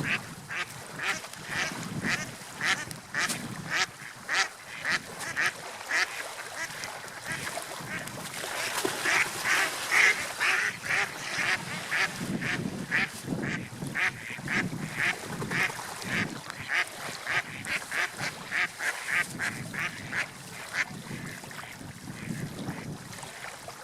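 Bird calling in a long run of short repeated calls, about two to three a second and thickest midway, over a low swelling wash of water.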